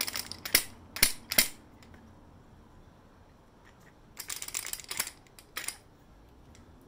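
Sharp metallic clicks and rattling as the battery compartment of a lightsaber hilt is opened by hand: a few separate clicks at first, then a quick clattering run about four seconds in.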